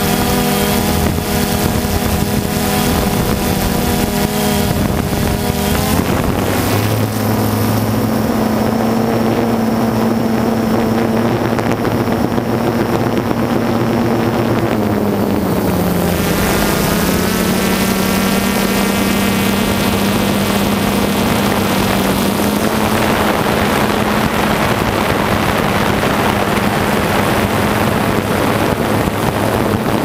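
DJI Phantom 2 quadcopter's electric motors and propellers buzzing in flight over a steady hiss, the pitch shifting a few times as the drone manoeuvres.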